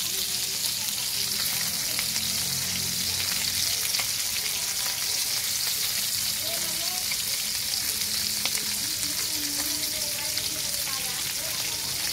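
Whole fish frying in hot oil in a metal wok: a steady sizzle with fine crackling pops throughout.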